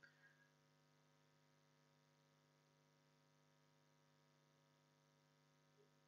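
Near silence: a faint, steady electrical hum, with a faint short sound or two right at the start.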